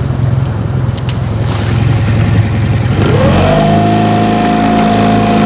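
Boat motor running steadily, then revving up about three seconds in, holding a high whine for a couple of seconds before dropping back down.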